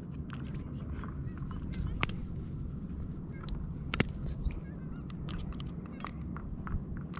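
Scattered sharp metal clicks and taps from pliers and a metal jig's hook being worked loose from the mouth of a small leopard grouper (cabrilla). The sharpest clicks come about two and four seconds in, over a steady low rumble.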